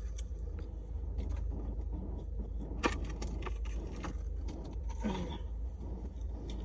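Steady low rumble of an idling car heard from inside the cabin, with scattered small clicks and rustles of things being handled, and a short low vocal sound about five seconds in.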